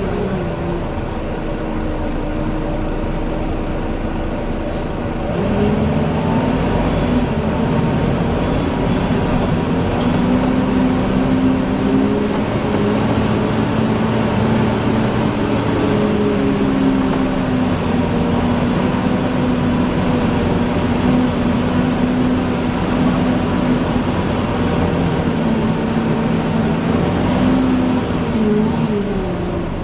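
Volvo Wright Eclipse Gemini double-decker bus running with a loud, hoover-like whine from its engine. About five seconds in it gets louder and higher as it pulls harder, then its pitch shifts a few times and falls near the end.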